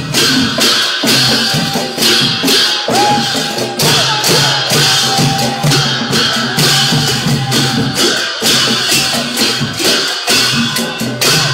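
Music with a steady beat and jingling percussion, with a melody line over it.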